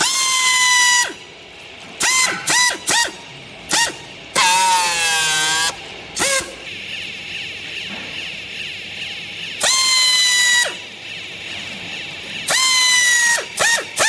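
Pneumatic strapping tool tensioning and sealing plastic strap around a bale: its air motor whines in abrupt bursts at a high, steady pitch that dips slightly as each one starts. There are about a dozen bursts, three of them about a second long and many short, and one between about four and six seconds wavers up and down in pitch.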